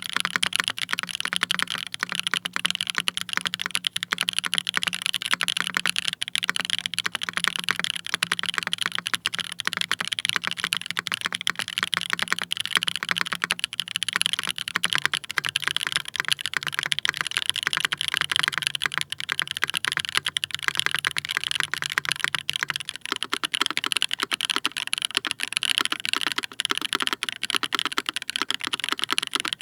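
Fast, continuous typing on a Geim65 mechanical keyboard with lubed linear switches and GMK keycaps: dense, even keystroke clicks with no pauses.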